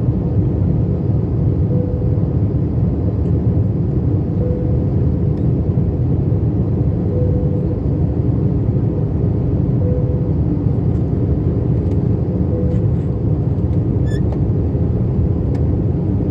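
Steady low roar of engine and airflow inside an Airbus A321 cabin during the descent to landing. Over it, a faint single-tone cabin chime sounds five times, evenly spaced about every three seconds.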